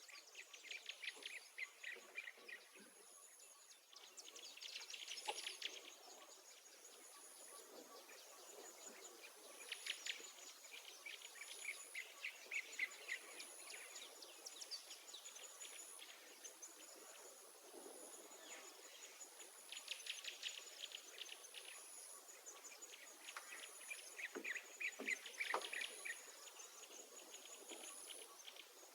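Faint outdoor wildlife sound: an insect's high pulsing trill repeating about once a second, with bursts of rapid chattering calls every few seconds.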